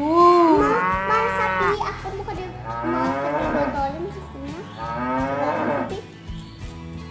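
A young girl's voice imitating a cow with several long, drawn-out moos, each about a second long and rising then falling in pitch.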